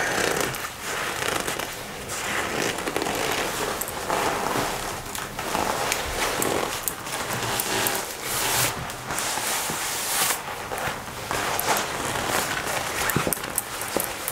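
Black leather jacket squeezed, crumpled and rubbed by hand: a continuous crinkling, creaking rustle full of fine crackles, with louder scrunches about eight and ten seconds in.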